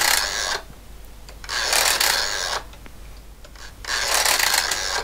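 Crank of a 3D-printed plastic Curta mechanical calculator being turned by hand: each turn gives about a second of rasping, clicking gear noise as the sum is added and carried through the result dials, three turns about two seconds apart, the first ending just after the start.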